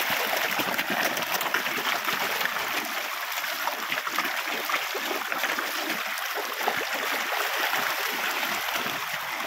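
A packed shoal of carp thrashing and splashing at the water's surface in a feeding frenzy, making a steady churning, splashing noise.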